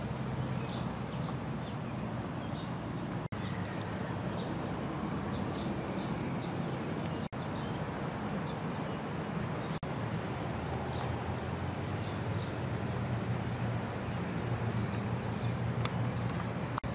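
Outdoor ambience: a steady low background hum with small birds chirping now and then.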